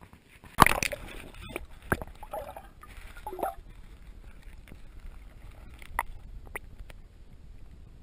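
A loud splash about half a second in as the camera plunges into lake water, then muffled underwater sloshing and gurgling over a low rumble, with a few sharp knocks.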